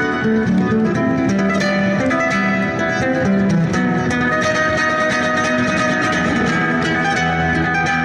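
Solo acoustic guitar music: a dense stream of plucked notes over held bass notes, playing steadily.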